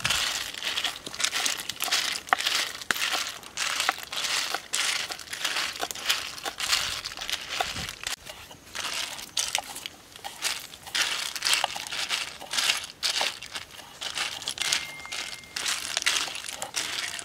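Small shells rattling and clicking against each other and the wok as they are stirred over a wood fire, mixed with a cleaver tapping on a wooden chopping board. The clatter is irregular and continuous.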